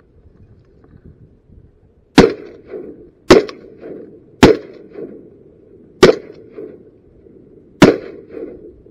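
Five shotgun shots fired in quick succession by several hunters, unevenly spaced over about five and a half seconds, starting about two seconds in, each followed by a fainter trailing report.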